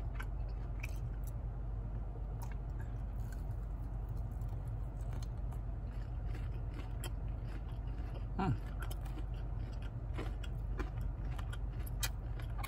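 A person chewing food with the mouth closed, small wet clicks and smacks, over the steady low hum of a car's cabin. About eight and a half seconds in there is a short falling vocal sound.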